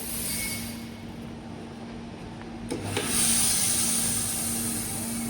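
Vacuum auto-feeder conveying polypropylene pellets through its tube into the extruder hopper: a steady rushing hiss and rasp over a constant machine hum. A click comes just under three seconds in, after which the hiss grows louder.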